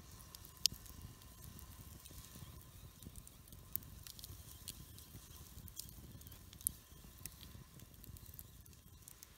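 Wood campfire crackling, with scattered sharp pops over a low steady rumble; the loudest pops come about half a second in and again near seven seconds.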